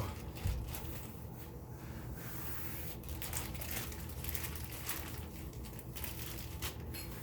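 Plastic wrapping crinkling and rustling as a wrapped part is handled, with scattered light clicks and knocks.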